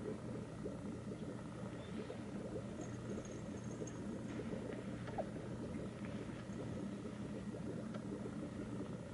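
A steady low hum with faint scattered soft taps and rustles, as a small puppy moves about and mouths plush toys on a fleece blanket.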